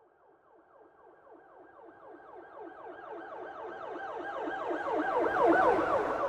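Police siren in a fast yelp, several rising sweeps a second. It comes in faintly and grows steadily louder as it approaches, peaking shortly before the end, then begins to fade as it passes.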